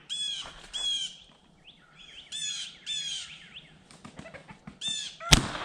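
Songbirds chirping over and over in short sweeping calls. Near the end comes a single sharp shot from an 1873 Winchester lever-action rifle chambered in .32-20 (.32 WCF), firing a 115-grain cowboy action load.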